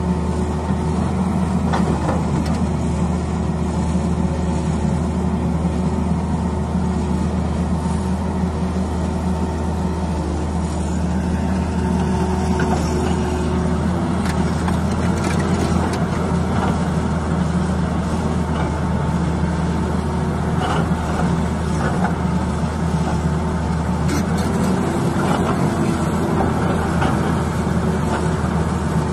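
Tata Hitachi ZAXIS 220 crawler excavator working: its diesel engine runs steadily under load with a whine from the hydraulics that comes and goes as the boom and bucket move, and a few knocks of the bucket against rock.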